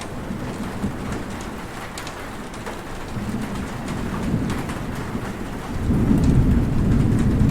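Heavy rain falling steadily, with scattered sharp drop hits. A low rumble of thunder builds about three seconds in and grows louder near the end.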